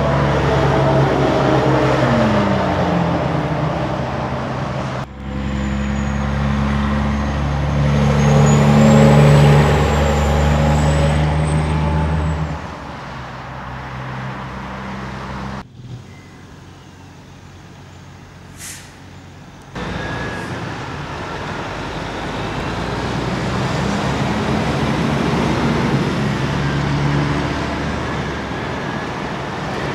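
Diesel semi-trucks pulling trailers past one after another, with a loud, steady engine drone whose pitch shifts as each one goes by. Passing traffic noise comes through between the trucks, with a quieter stretch of lighter traffic in the middle.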